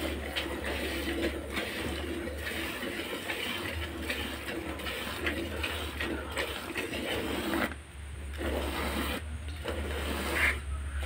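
Hand-milking a cow: jets of milk squirting from the teats into a plastic bucket partly filled with milk, in a quick, steady rhythm, with a short break about three-quarters of the way through.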